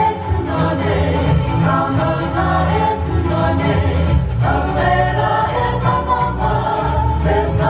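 Live music: a group of voices singing together over instrumental accompaniment with sustained low bass notes.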